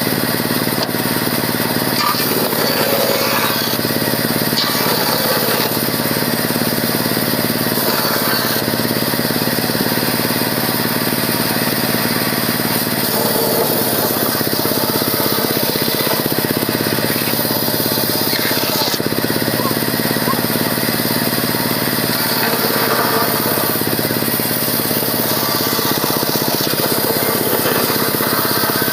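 A power tool's motor running steadily and loudly, its tone shifting slightly every few seconds.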